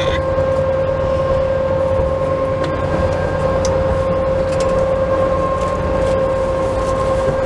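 Steady, loud hum: one constant whining tone over a low rumble, unchanging throughout.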